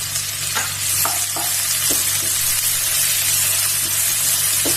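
Chopped onion and garlic sizzling in hot oil in a kadhai, stirred, with a few short clicks against the pan.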